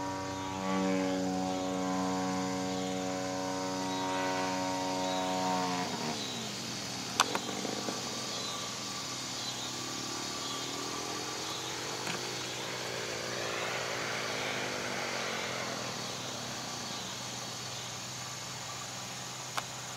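Radio-controlled model airplane's motor and propeller droning overhead at a steady pitch, which drops away sharply about six seconds in. Later the fainter drone swings up and down in pitch as the plane flies around. Two sharp clicks come about seven seconds in and near the end.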